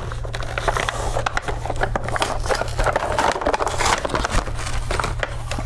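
Cardboard toy box being pulled and torn open by hand: a continuous run of scraping, crackling and rustling of cardboard and packaging, over a steady low hum.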